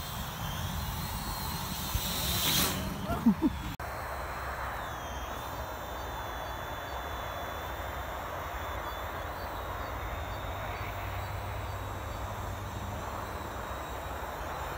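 Steady rush of strong wind with the hum of a small quadcopter drone flying overhead. The sound swells louder and more uneven about two to three seconds in, drops out for an instant just before four seconds, then runs on as an even rush.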